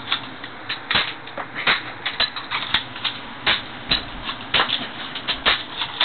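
BB guns firing in a rapid, irregular run of sharp snaps, several shots a second.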